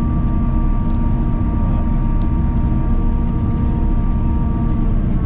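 Self-propelled forage harvester running steadily under load while chopping corn for silage: a dense engine and drive rumble with a steady whine.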